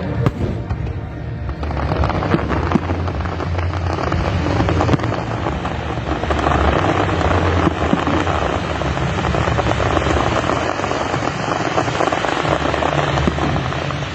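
Fireworks crackling, a dense run of many small rapid pops that thickens about six seconds in, over a steady low rumble.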